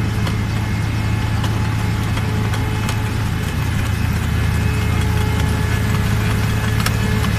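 Dewulf carrot harvester's engine and working machinery running steadily with a loud low drone, with faint scattered clicks and rattles.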